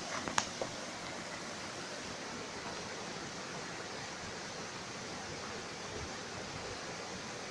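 Shallow stream running and splashing over rocks, a steady rushing noise, with a few brief clicks in the first second.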